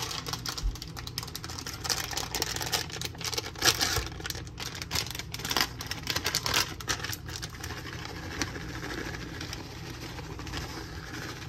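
A plastic bag of shredded cheese crinkling and crackling as it is handled and opened, with many sharp crackles in the first several seconds. This gives way to a softer, even rustle as the shredded cheese is shaken out of the bag.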